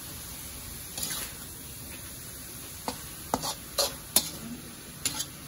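Metal spatula scraping and knocking against a metal wok as shredded jackfruit and tomatoes are stirred, in irregular strokes. The strokes come more often and sharper in the second half.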